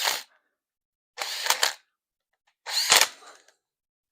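Handheld power tool, most like a cordless drill-driver, run in three short bursts of about half a second each with pauses between them.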